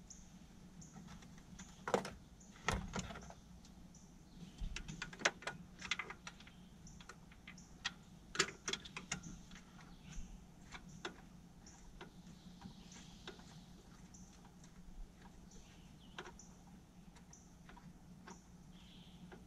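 Scattered clicks and light knocks of hands handling parts in a pickup's engine bay, busiest in the first half and sparser later, over a faint steady hum.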